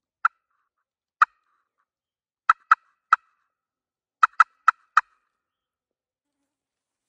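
Friction pot call worked with a striker, giving short, sharp hen-turkey clucks: two single notes, a quick pair, another single, then a fast run of four about four seconds in.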